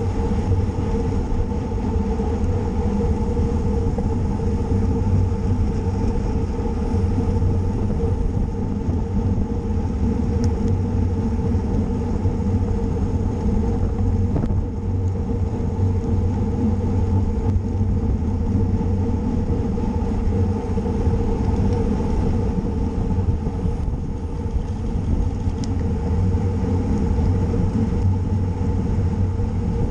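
Steady rumble of wind and road noise picked up by a camera riding on a racing bicycle at speed.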